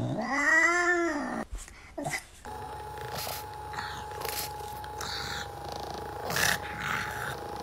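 A cat meows once, a long rising-then-falling call lasting over a second, complaining about its empty food bowl. After a cut, a handheld electric massager hums steadily with a few brief noises over it.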